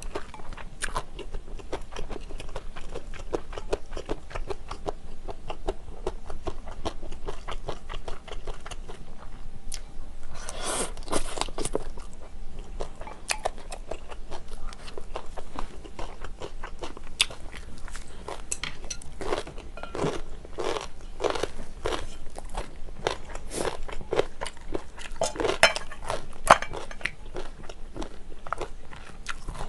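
Close-miked chewing of sauce yakisoba, stir-fried noodles with vegetables and beef: wet, crunchy mouth sounds made of many small clicks, with louder stretches of chewing about a third of the way in and again near two-thirds and toward the end.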